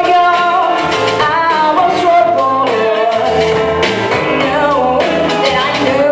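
A woman singing a song into a microphone over amplified instrumental accompaniment with bass, her melody gliding and held on long notes.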